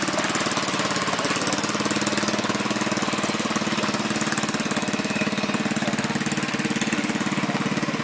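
A small boat motor running steadily, with a fast, even beat.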